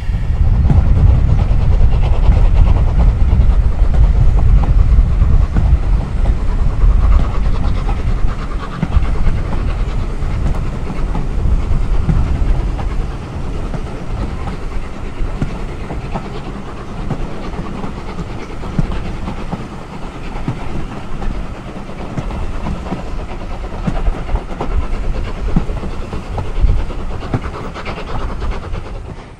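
Steam-hauled train heard from an open carriage window while running along the line: wheels on the rails and the engine's exhaust under a steady deep rumble, loudest for the first dozen seconds and then easing a little.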